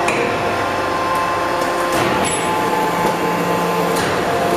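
Shisha charcoal briquette press running: a steady machinery hum with a few sharp clanks, the loudest about two and four seconds in.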